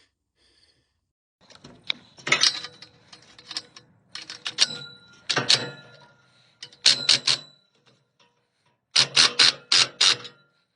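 Quick clusters of sharp metallic clicks and clanks, some with a brief ringing tone, in about five bursts separated by quiet gaps.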